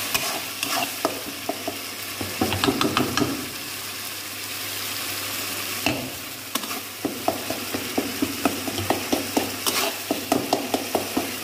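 Thick onion-tomato masala sizzling in a kadai, fried down until ready, while a spatula stirs and scrapes it against the pan. The strokes are irregular at first, then quicken to about three taps a second from about halfway.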